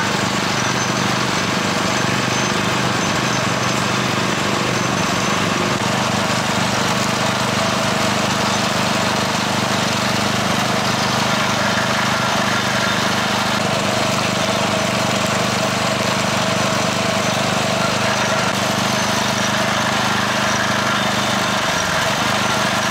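A small engine running steadily with an even hum, over a background of crowd chatter.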